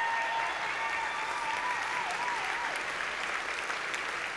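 Large audience applauding steadily in a hall. One long high call rises above the clapping and wavers before it stops about two and a half seconds in.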